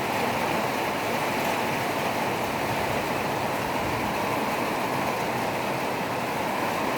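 Steady rushing of rain and running water, an even noise without breaks or changes.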